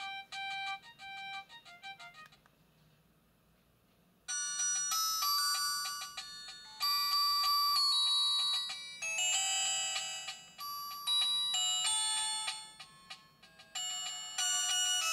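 Built-in ringtones of a myPhone Halo Easy phone: a melody of short repeated notes ends about two seconds in. After a short pause, a louder, busier ringtone melody with several notes at once starts about four seconds in.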